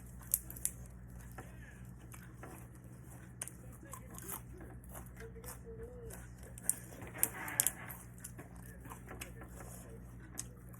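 Eating sounds: scattered sharp clicks and crunches with tearing and rustling, as fresh vegetables are torn and chewed. A steady low hum runs underneath.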